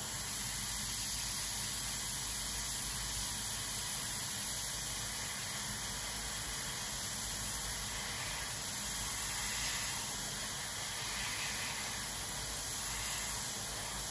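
Iwata HP-CS airbrush with a 0.35 mm nozzle spraying at about 13 PSI: a steady hiss of air and paint mist with the trigger held down.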